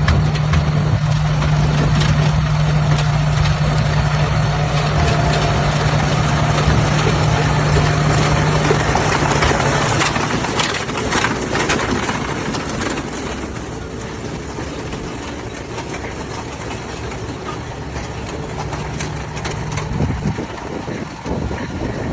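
An engine running steadily with a low hum, with rattling and knocking over it. It eases and gets quieter after about twelve seconds.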